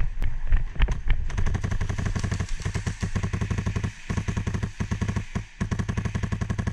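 Footsteps on concrete for about the first second, then a Polarstar high-pressure-air airsoft rifle firing rapid full-auto strings of shots, broken by a few short pauses.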